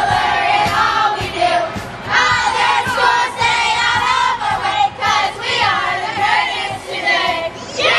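A group of children chanting a team cheer together in a huddle, many voices overlapping, with a louder burst of shouting right at the end.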